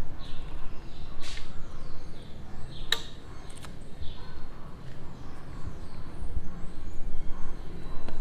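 Steady low background rumble with a few sharp clicks, about a second, three seconds and three and a half seconds in, and several faint high chirps falling in pitch.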